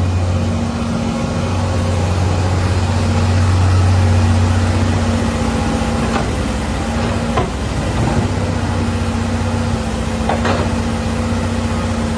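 Excavator's diesel engine running steadily with a low, even hum, a few brief sharper sounds over it. The engine and hydraulic pump are running well, at normal operating temperature.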